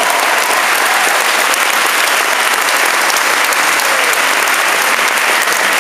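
Steady applause from a concert audience and the gospel choir on stage, many hands clapping at the end of a song.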